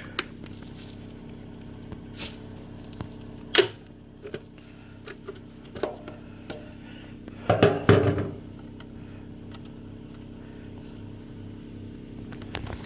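Scattered clicks and clattering of tools and plastic parts as the air box is taken off a Champion generator, with the loudest clatter about eight seconds in. A steady low hum runs underneath.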